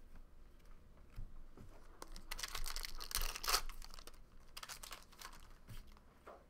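Wrapper of a 2013 Bowman Draft baseball card pack torn open and crinkled. It is loudest from about two seconds in, with a second stretch of crinkling a little later.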